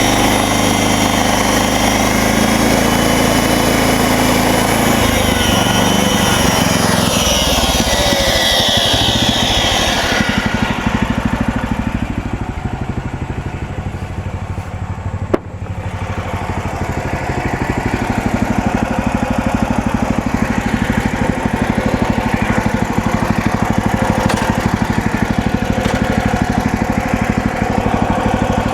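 MechMaxx SM32 band sawmill running, its engine and blade going through cedar with a bright hiss over the engine note. About ten seconds in the hiss falls away and the engine runs on more quietly. There is one sharp click around fifteen seconds, and the engine sound comes back up a couple of seconds later.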